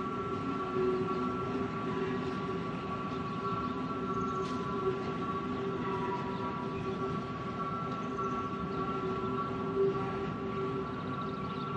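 Freight train of coal hopper wagons rolling past, with several steady high-pitched tones running over the rumble of the wheels throughout.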